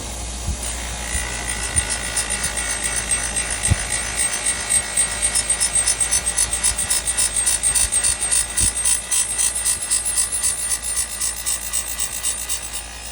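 A small power tool with a steady high whine grinding a knife blade. From about four seconds in, the sound pulses rapidly and evenly as the blade is worked against it.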